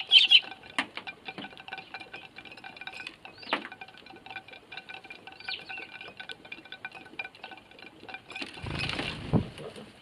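A flock of Eurasian tree sparrows pecking seed off plates, making many quick taps with a few short chirps; a little before the end the whole flock takes off at once in a burst of wingbeats.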